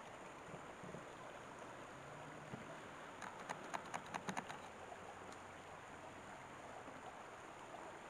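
Shallow rocky stream running with a steady soft rush of water. A quick run of about eight sharp clicks comes roughly three to four and a half seconds in.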